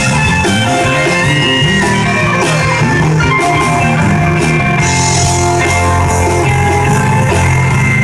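Live rock band playing: a guitar line over bass and a drum kit with cymbal hits.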